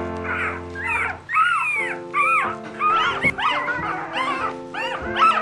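Newborn Nova Scotia Duck Tolling Retriever puppies squeaking and whimpering, many short high cries one after another, over background music.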